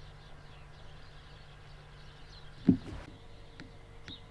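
Outdoor ambience: a steady low hum with faint high chirps, broken about two and a half seconds in by one sharp thump, then a few light clicks.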